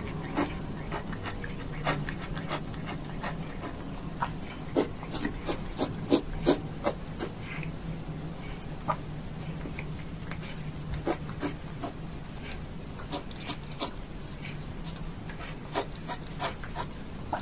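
A cat chewing small shrimp: irregular crunchy clicks of its bites, busiest about five to seven seconds in, over a steady low hum.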